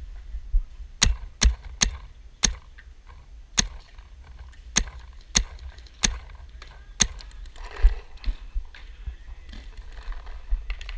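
Paintball marker firing single shots: about nine sharp pops at an uneven pace over roughly six seconds, then stopping.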